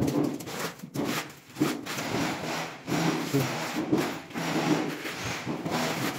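Trowel scraping tile adhesive across a wall in a run of repeated scraping strokes, with short breaks about once a second.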